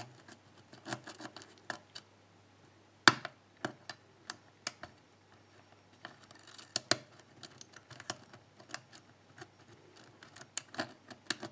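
Lock picking: a metal pick rakes and lifts pins inside a pin-tumbler lock cylinder held under tension, giving scattered irregular clicks of varied loudness, with one sharper click about three seconds in.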